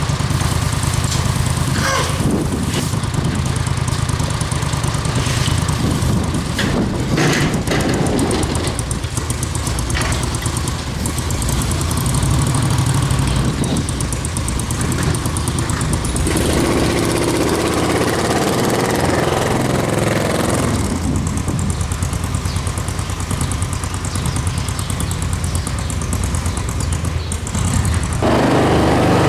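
A vehicle engine running steadily with a low hum, with a few sharp knocks or clanks in the first several seconds.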